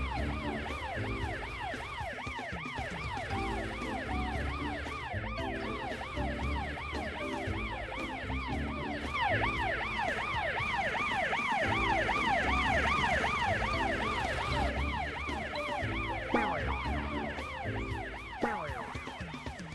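A cartoon fire engine's siren wailing in fast up-and-down sweeps, several a second, a little louder in the middle. Background music with a repeating bass line plays under it.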